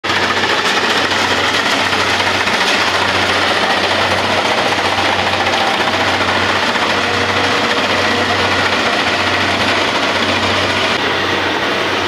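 Kubota rice combine harvester running at work, a loud, steady mechanical din of engine and fast clattering machinery. It turns slightly duller near the end.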